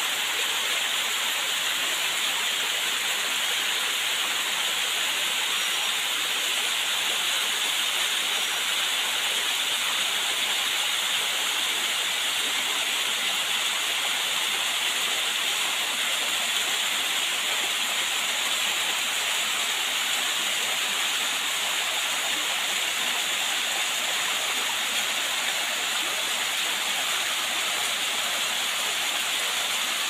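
Small waterfall of modest flow splashing down a rock face into a shallow pool: a steady, even rush of falling water.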